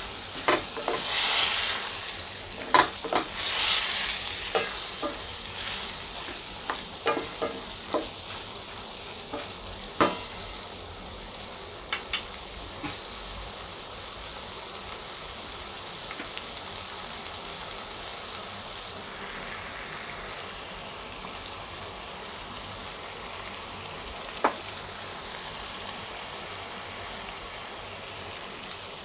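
Chicken and carrot strips sizzling in a stainless steel pan. For the first ten seconds or so the stirring utensil scrapes and clicks against the pan, then the sizzle goes on steadily, with one more click later.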